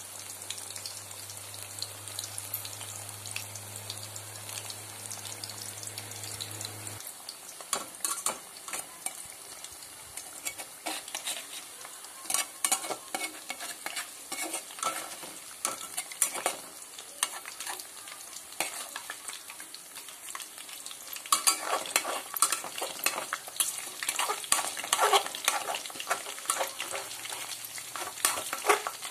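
Batter-coated bitter gourd slices deep-frying in hot oil in a metal kadhai, with a steady sizzle. From about seven seconds in, a perforated metal slotted spoon scrapes and clinks against the pan as the slices are turned, busiest near the end.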